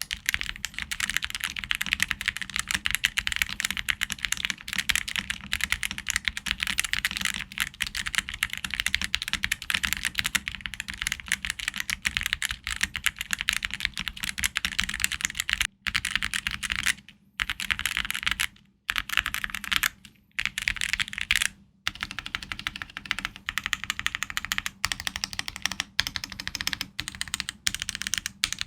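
Fast, continuous typing on a Yunzii YZ87 prebuilt TKL mechanical keyboard: a dense stream of key clicks and clacks, broken by a few short pauses a little past the middle.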